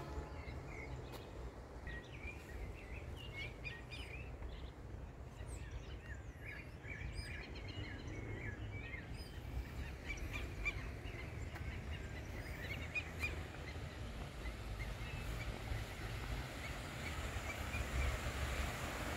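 Outdoor ambience: small birds chirping and twittering over a steady low rumble, the chirps dying away about three-quarters of the way through as a hiss builds near the end.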